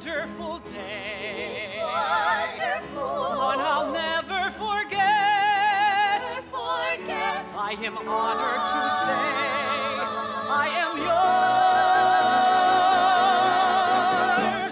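Musical-theatre singing with accompaniment: a man's voice and several women's voices sing with vibrato in a legit, operatic style. The singing grows louder and ends in one long, loud held chord starting about eleven seconds in.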